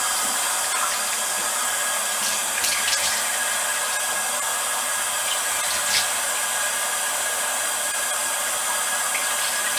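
Tap water running steadily into a bathroom sink, with a few faint knocks.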